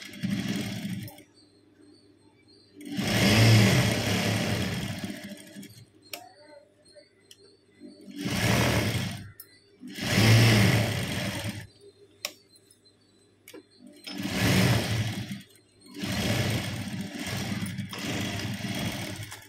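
Sewing machine stitching through folded cloth in about six short runs, each a second or two long with pauses between. In each run the machine speeds up and then slows as the seam is fed through.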